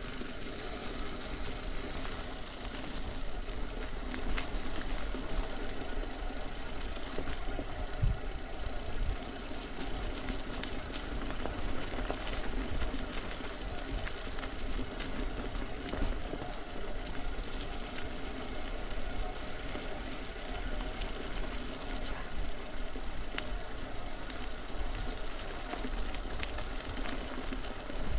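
A small motor or engine running steadily, with a few brief knocks, the strongest about eight seconds in.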